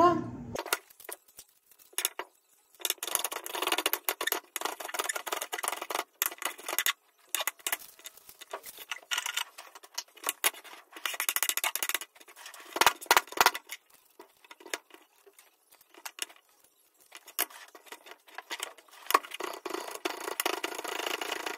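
Chef's knife chopping shallots and garlic on a wooden cutting board: runs of quick knocks broken by short pauses.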